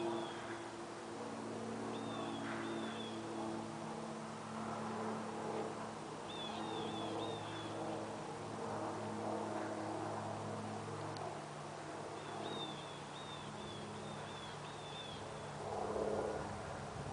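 Propeller plane flying overhead: a steady, droning engine hum with several pitched tones, its pitch shifting slightly about two thirds of the way through.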